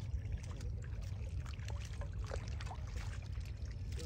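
Pond water sloshing, with scattered small splashes and drips as water chestnut vines are lifted dripping out of the water by a harvester standing in the pond, over a steady low rumble.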